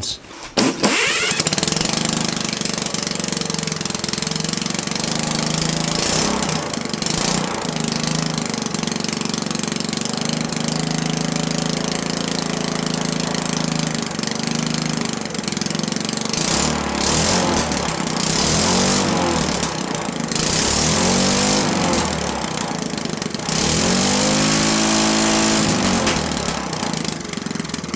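Single-cylinder Briggs & Stratton small engine running on gasoline in a test run. It starts up about a second in, runs steadily, and is revved up and down several times in the second half as the throttle linkage is tested.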